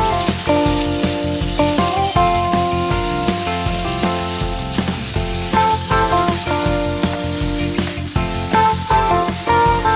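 Chopped bacon sizzling in a frying pan with a steady hiss, stirred now and then with a wooden spatula. Background music with a regular beat and changing melody notes plays throughout and is the louder part.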